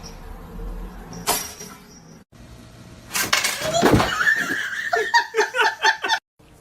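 A quiet stretch with one sharp knock about a second in, then, after a brief break, loud laughter in quick repeated bursts that stops abruptly near the end.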